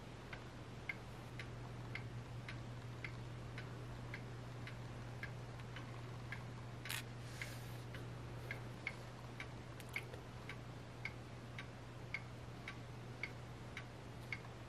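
Faint, steady ticking at just under two ticks a second over a low steady hum, with a brief click or rustle about seven seconds in.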